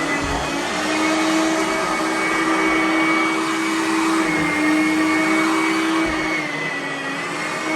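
Riccar SupraLite R10E upright vacuum cleaner running steadily, its motor whine shifting slightly in pitch a few times.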